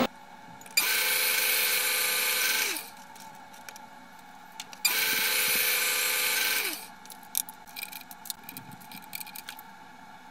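Drill press boring into a metal block held in a drill-press vise: two bursts of drilling about two seconds each, the tone sinking as each one ends. Light clicks and rattles of handling follow.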